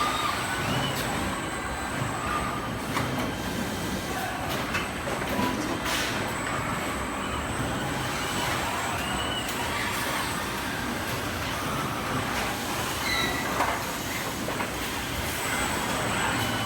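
Steady machinery noise of an automotive body-shop welding line, an even mechanical din with a sharp click about six seconds in.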